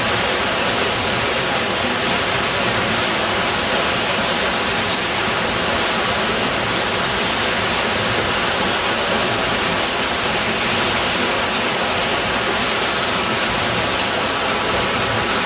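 Churning, breaking water of an artificial wave pool: a steady, loud rush of surf and foam.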